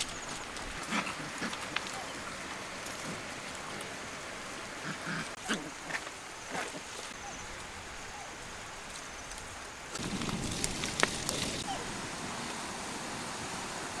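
Young monkeys and a puppy playing on dry leaf litter: scattered short squeaks, then about ten seconds in a louder spell of rustling and scuffling in the leaves, over a steady outdoor hiss.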